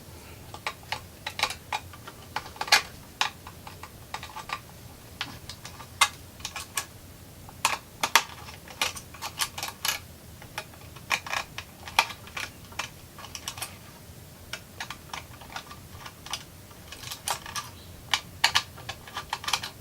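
Irregular small clicks and taps as the terminal screws of an old sprinkler control panel are unscrewed and its wires pulled off, a few clicks a second.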